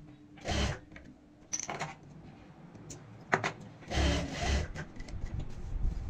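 Cloth rustling and rubbing in several swishes as a bulky quilted fabric bag is pushed and turned at a sewing machine, with one sharp click a little past the middle. A low uneven rumble comes in near the end.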